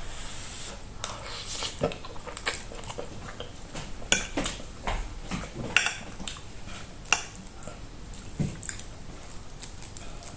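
Cutlery clicking and scraping on a plate at irregular intervals while a meal is eaten.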